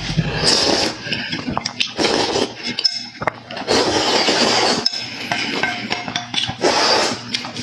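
Eating utensils clinking and scraping against dishes, mixed with loud eating noises that come in bursts close to the microphone.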